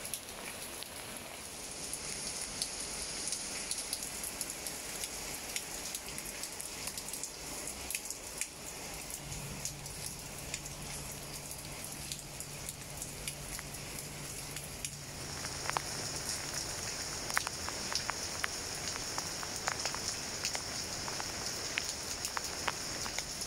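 Steady rain falling on plant leaves, with many separate drops tapping close by. About two-thirds of the way in, the drop taps become sharper and more frequent.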